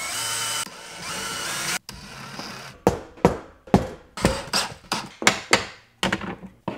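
Cordless drill running in two short spells as it bores holes in drywall, followed by a claw hammer tapping plastic drywall anchors into the holes, about a dozen quick sharp strikes.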